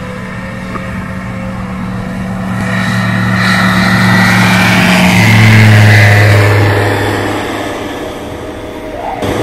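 Single-engine light aircraft's propeller engine at full power. It grows steadily louder as the plane comes closer, peaks about halfway through as it passes with a drop in pitch, then fades away.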